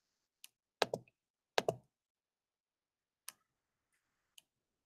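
Computer mouse clicking about five times, two of them as quick double clicks about a tenth of a second apart.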